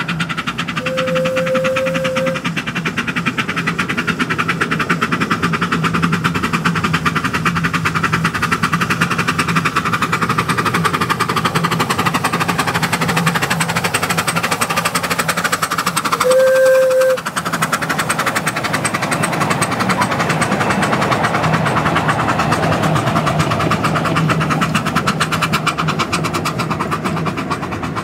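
Miniature steam locomotive hauling passenger cars past at speed, with a fast, steady chuff of exhaust beats. The whistle gives two short blasts, about a second in and again about 16 seconds in, the second one the loudest.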